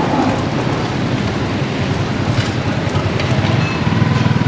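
Burger buns and meat patties sizzling on a buttered flat-top griddle, a steady hiss, with a motor vehicle engine running underneath that grows louder near the end.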